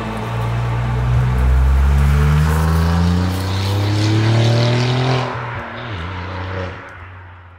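Alfa Romeo Giulia Quadrifoglio's twin-turbo V6 accelerating, its pitch climbing steadily for a few seconds, then easing off about five seconds in and fading away near the end.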